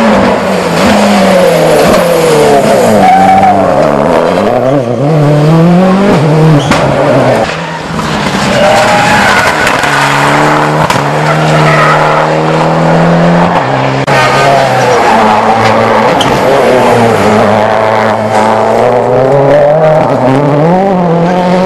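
Turbocharged four-cylinder rally cars passing one after another at full speed, their engines revving up and falling away through gear changes. There are about three passes, with breaks about a third and two-thirds of the way through.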